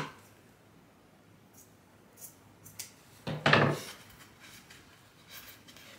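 Handling sounds of a foam liner being worked into a motorcycle helmet shell: a knock at the start, a few light ticks, and one louder scraping knock about three and a half seconds in.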